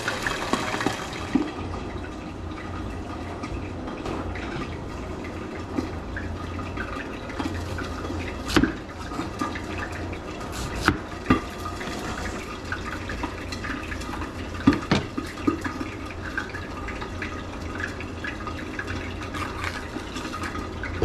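Chef's knife slicing an onion on a plastic cutting board, giving a few sharp, irregularly spaced knocks as the blade meets the board. A steady hiss runs underneath throughout.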